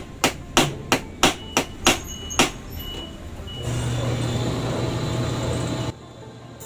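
Light hammer taps on the pivot rivet of a pair of fishing scissors, peening it to tighten loose blades: about eight sharp strikes at roughly three a second, stopping about two and a half seconds in. A steady machine hum follows from about four seconds in and cuts off suddenly near the end.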